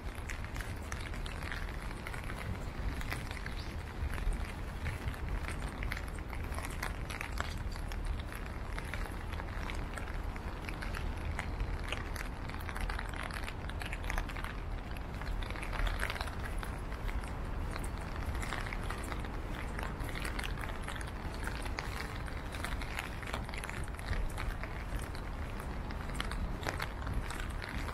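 Outdoor city street ambience heard while walking: a steady low rumble of traffic under many small scattered clicks and taps from footsteps.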